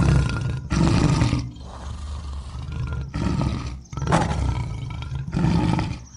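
Lion growling in a series of deep roars, roughly one a second.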